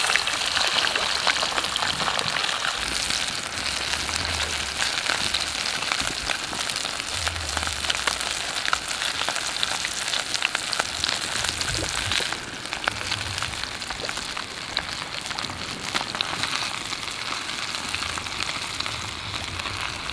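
Fish frying in hot oil in a pan, a steady sizzle with constant small crackling pops as the underside browns. The sizzle drops slightly in level about twelve seconds in.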